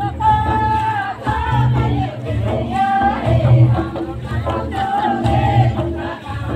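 Karma folk song: several voices singing together over a repeating low drum beat.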